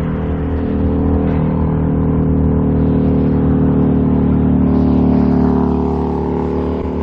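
Cement mixer truck's diesel engine running close by, a steady heavy drone that grows louder over the first five seconds and then eases slightly.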